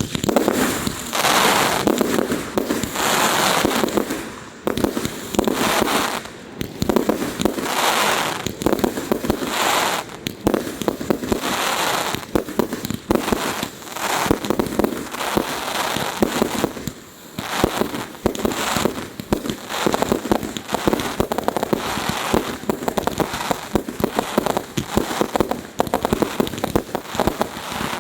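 Fireworks display: a dense, continuous barrage of bangs and crackling shells with no let-up.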